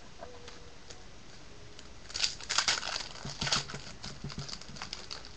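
Wrapper of a Panini Contenders trading-card pack crinkling and tearing as it is opened by hand: a burst of crackling about two seconds in, then lighter rustling.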